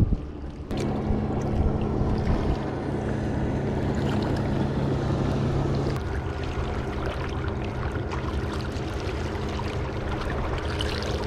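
Small sea waves lapping and splashing against shoreline rocks, under a steady low hum that eases about six seconds in.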